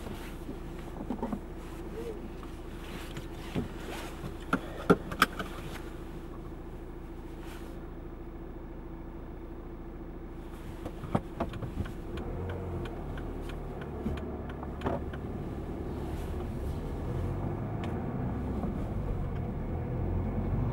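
Inside a car: a steady engine hum with a few sharp clicks and knocks in the cabin, the loudest a cluster about five seconds in. From about halfway through the car pulls away, and engine and road rumble grow gradually louder.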